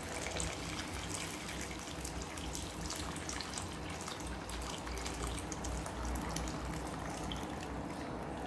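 Hot water pouring in a steady stream from a jug into a wok of pork in sauce, splashing and trickling into the liquid.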